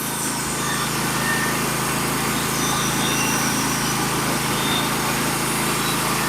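Portable bandsaw mill's small engine running steadily at a constant speed.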